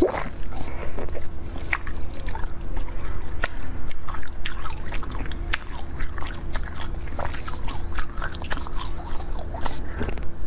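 Crunching bites into frozen green basil-seed ice balls, with many sharp cracks and crackles of ice breaking and being chewed close to the microphone. A steady low hum sits underneath.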